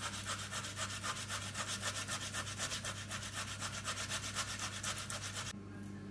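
Potato being grated on a four-sided metal box grater: quick, even rasping strokes that stop abruptly about five and a half seconds in.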